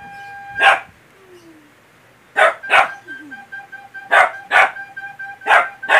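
Small dog barking about seven times in quick pairs at a recorder, which holds a steady note at the start and again through the second half. The dog is afraid of the recorder's sound.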